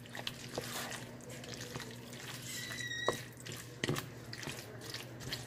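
Wooden spoon stirring a wet, saucy chicken-and-vegetable filling in a glass baking dish: soft wet squelching, broken by a few sharp knocks.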